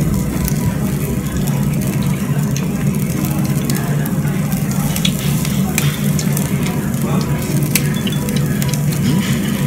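Meat sizzling on a tabletop yakiniku grill, over a steady low hum, with scattered light clicks.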